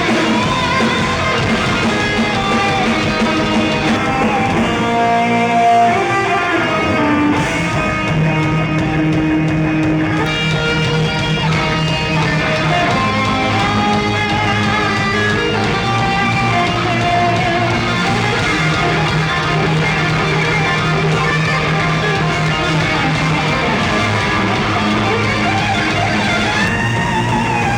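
A rock band playing live, with an electric guitar carrying the melody over held bass notes.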